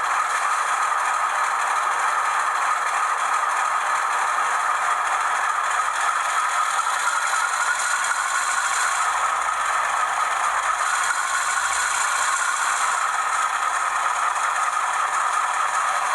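Auscision HO-scale model of a 442 class diesel-electric locomotive running around the layout, with a steady rattle from its wheels and mechanism on the track.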